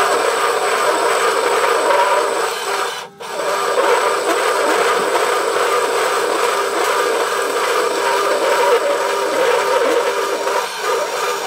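Hafco BS-5V metal-cutting band saw running and cutting through steel hex bar, a steady sawing noise with a motor hum under it, briefly broken about three seconds in.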